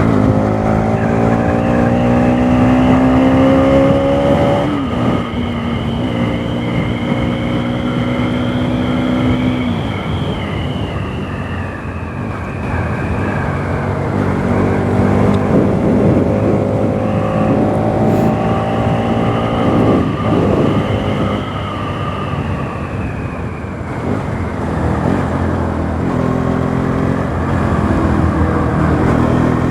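Bajaj Pulsar NS200's single-cylinder engine under hard acceleration on the move. Its pitch climbs through each gear and falls back at each shift, several times over.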